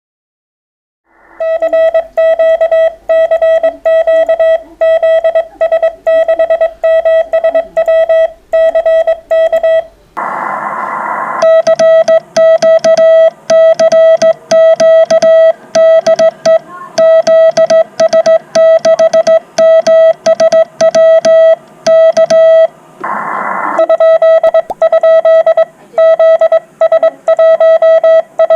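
Morse code (CW) from a ham radio transceiver: a single steady tone keyed rapidly on and off in dots and dashes, starting about a second in. It is broken twice by a second or so of radio hiss.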